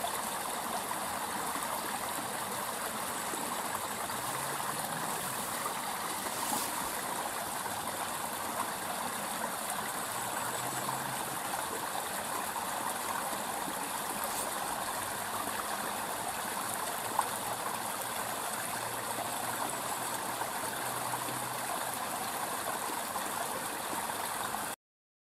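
Small, shallow stream running over stones in a narrow channel: a steady rushing, babbling flow, with one sharp click about two-thirds through. The sound cuts off suddenly near the end.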